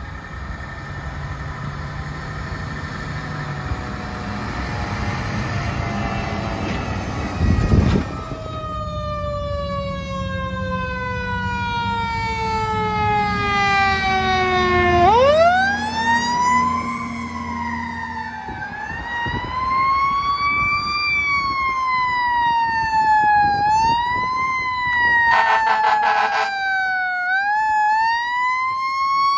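Fire truck sirens: a siren winds slowly down for several seconds, then sirens wail up and down in repeated cycles. Over the truck's engine rumble there is a loud low blast about eight seconds in, and a short air-horn blast near the end.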